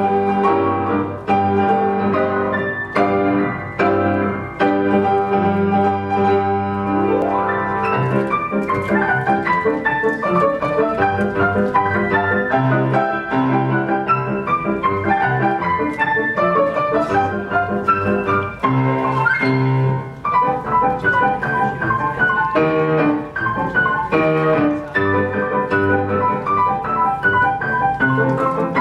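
Live duet of a grand piano and a woodwind instrument, playing a lively piece with many quick notes.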